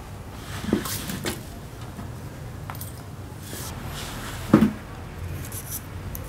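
A few short metal knocks as a Honda Silver Wing 600 starter motor's housing is handled and set against a steel floor plate during reassembly: two light ones about a second in, then a louder clunk past the middle.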